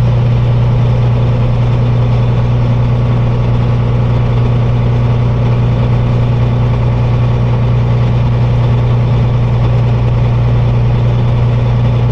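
Kenworth semi-truck's diesel engine running steadily under way, heard from inside the cab as a constant low drone.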